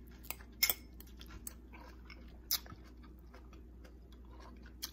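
Chewing a mouthful of crunchy cabbage slaw, with a few sharp clicks in the first couple of seconds.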